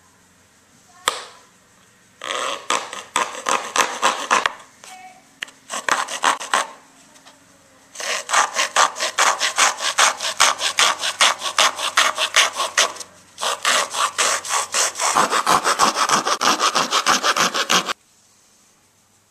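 Hand-held hacksaw blade sawing through a rigid foam board with quick back-and-forth strokes, about five a second. It comes in a few short bouts, then two long runs of about five seconds each, and stops about eighteen seconds in.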